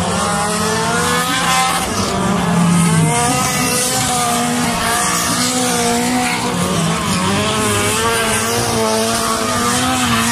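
Several stock car engines running at high revs during a race, their pitch rising and falling as the cars accelerate, lift off and pass, with the notes of two or more engines overlapping.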